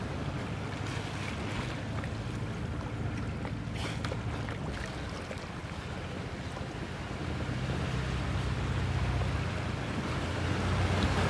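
A small boat's motor running with a steady low hum, over wind on the microphone and lapping water, the hum growing louder near the end.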